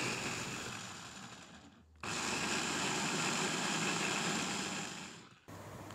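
Electric food chopper running as it grinds shallots, garlic, ginger and kencur with a little oil into a paste: a steady whirring in two stretches, the second cutting off abruptly about five seconds in.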